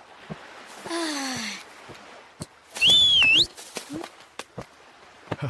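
Cartoon sound effects: a short falling voice-like sound about a second in, then a loud, shrill whistle about three seconds in that dips and then rises at the end, with a few light clicks.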